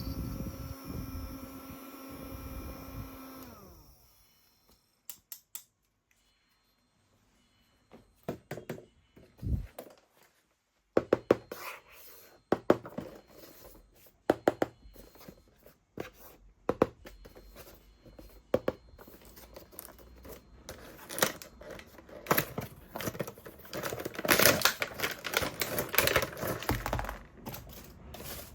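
A small electric mini fan's motor humming steadily, then winding down and stopping about four seconds in. After a quiet pause comes a long stretch of handling noise: irregular clicks, taps and crinkling, tearing-like rustles, busiest near the end.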